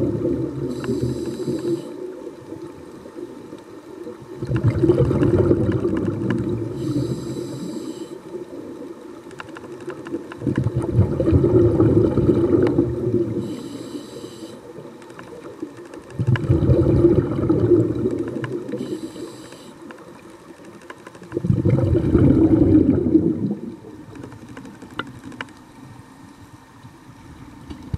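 Underwater breathing of a swimmer close to the camera: five rumbling swells of exhaled air about every five to six seconds, with a short hiss at the end of several of them.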